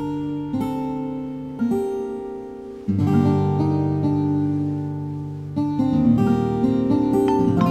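Soft background score of slowly strummed acoustic guitar chords, a new chord struck every one to three seconds and left to ring.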